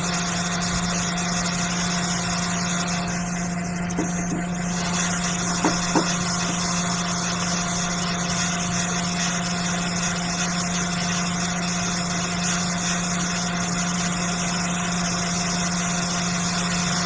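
Hot air rework station blowing at 400 degrees to desolder a memory chip from a MacBook Pro logic board: a steady fan hum with a constant low tone. There are a couple of faint ticks midway.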